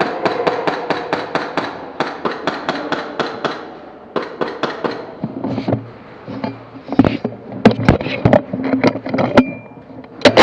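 Airsoft gun firing: a fast, even string of shots at about five a second, then scattered, louder single shots.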